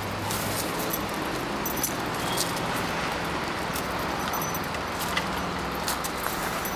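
Two dogs scuffling in play on gravel and wooden boards: scattered light clicks and jingles over a steady hiss.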